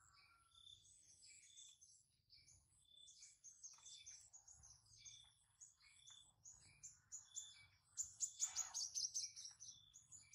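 Faint bird chirping: short high notes repeated over and over, with a quick, louder run of chirps about eight seconds in.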